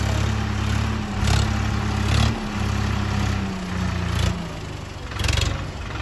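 Swaraj 963 FE tractor's three-cylinder diesel engine running under load while pulling a reversible mouldboard plough through soil, its note dipping slightly a little past halfway. A few brief louder clattering noises come over the engine drone.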